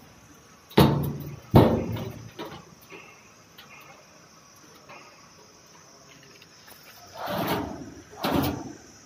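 Sheet-steel cabinet drawers being shut, two sharp metallic bangs about a second in, followed by small clicks at the drawer lock and two longer scraping sounds near the end.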